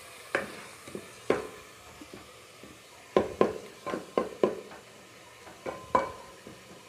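Wooden spoon stirring and scraping a chilli, ginger and tomato masala in an aluminium pot. It knocks against the metal in irregular strokes with a short ring, several in quick succession about three seconds in and two more near the end, over a faint sizzle of frying.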